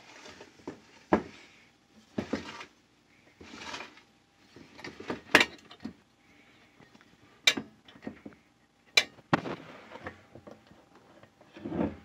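Enamelware whistling tea kettle being handled: a series of sharp clicks and knocks from its hinged spout whistle cap and handle, with short scraping and rustling noises between them.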